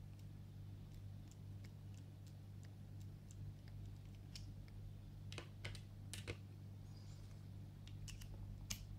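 Faint, scattered small metal clicks of a socket extension adapter knocking on a Skil ratcheting screwdriver's shaft as it is wiggled and pulled off, with a cluster of sharper clicks a little past the middle, over a steady low hum. The adapter fits loosely, with a lot of play.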